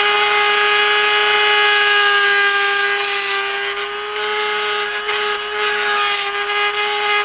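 Dremel rotary tool running at a steady high whine while it grinds the opening wider so the battery plug will pass through. A rougher hiss joins in briefly about three seconds in and again near six seconds.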